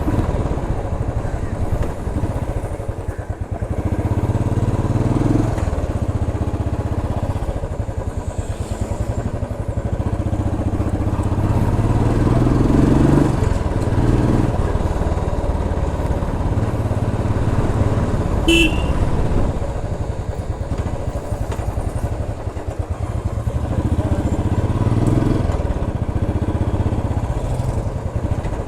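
Royal Enfield Classic 350's single-cylinder engine and exhaust running while riding, its note rising under acceleration about three times. A brief horn toot comes about two-thirds of the way through.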